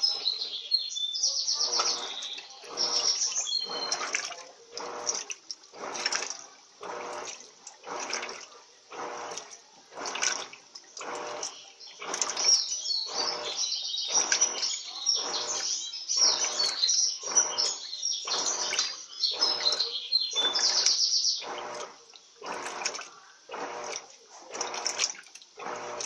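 LT13B 13 kg Turbo top-loading washing machine agitating its load in the rinse cycle at the medium water level: water and wet clothes swishing in a steady rhythm of about three strokes every two seconds as the agitator reverses back and forth.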